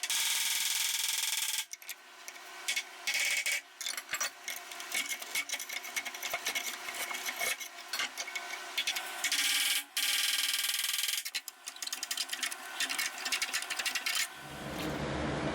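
Scratchy scraping and rasping on sheet metal in irregular stop-start strokes, with a few short pauses, as a tool works over the metal. About a second before the end it gives way to a low steady hum.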